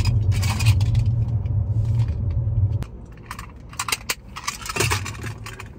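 Clicking and rattling of small objects being handled in a car, over a loud low rumble that cuts off abruptly about three seconds in.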